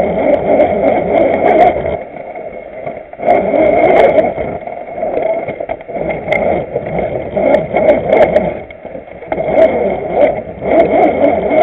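RC scale jeep's motor and geared drivetrain running, a steady whine with a rough grinding texture and scattered clicks. The throttle eases off twice, about two seconds in and again near the end, before picking up again.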